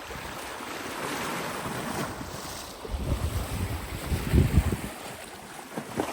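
Rough sea waves washing, with wind rumbling on the microphone in gusts. The gusts are loudest about three to five seconds in.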